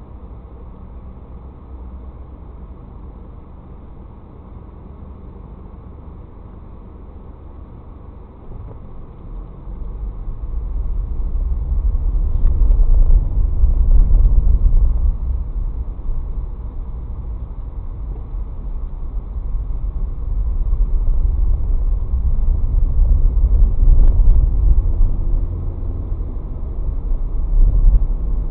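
Car engine and road rumble heard from inside the car through a dashcam microphone. It is low and steady while the car stands still, then grows much louder from about nine seconds in as the car drives off, swelling and easing with speed.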